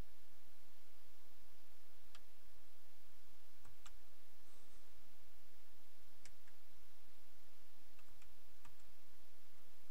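Push-buttons on a Ford Audio 6000 CD car radio clicking as they are pressed, a handful of separate clicks, some in quick pairs, over a steady hiss.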